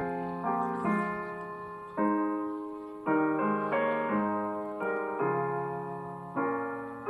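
Slow, gentle solo piano music: chords struck about once a second, each left to ring and fade.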